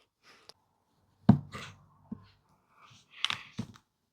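Small plastic pieces being handled and picked through: a sharp click about a second in, then a few lighter clicks and taps near the end.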